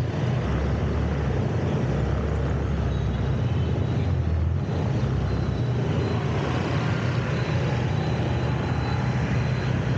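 Steady street traffic and road noise heard while riding through city traffic: a continuous low rumble of engines and tyres.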